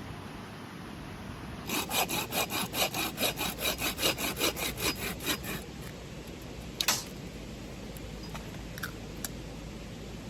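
Hand saw cutting through wood in quick, rhythmic strokes, about five a second for roughly four seconds, then a single sharp knock a little later.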